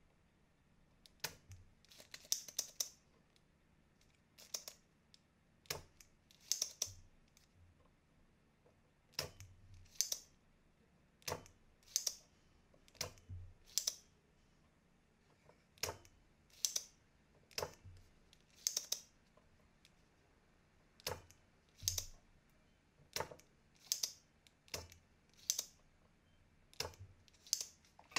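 Sharp clicks and light knocks, roughly one a second and some in quick pairs, from tools working on a computer mouse's circuit board during desoldering with a soldering iron and a desoldering pump.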